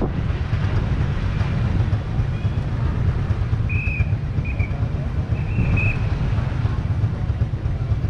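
Steady low rumble of street traffic, with three short high-pitched tones near the middle.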